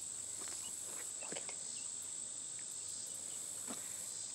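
Steady high-pitched drone of a summer insect chorus, crickets or similar, with a few faint short chirps and light rustles over it.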